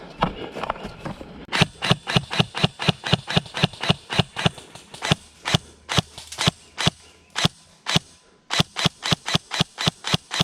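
Airsoft gun firing a rapid series of single shots, about four a second, with a brief pause near the end before firing resumes.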